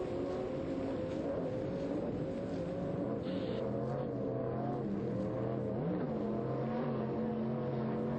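Offshore racing powerboats running at speed in a pack, several engine drones at different pitches sounding together. A lower drone joins about two and a half seconds in.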